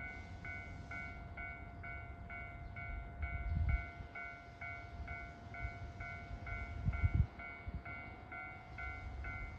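Railway level-crossing warning bell ringing in an even, two-pitched ding about twice a second, the signal that a train is approaching. Short low rumbles rise under it a couple of times.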